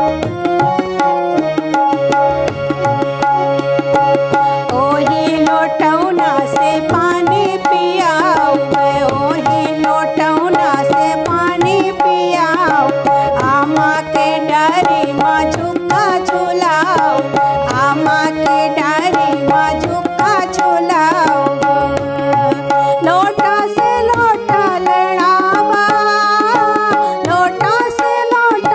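Tabla playing a steady rhythm in a Bagheli fagua folk song, over a sustained drone with a wavering, ornamented melody line through the middle.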